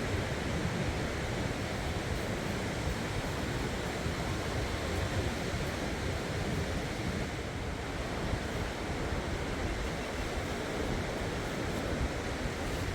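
Sea surf washing steadily, with wind buffeting the microphone: a continuous rushing noise with no distinct events.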